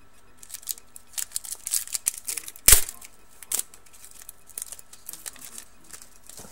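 A trading card pack's wrapper being torn open: a quick run of crinkling and tearing crackles, with one loud sharp snap a little under three seconds in, then a few faint rustles.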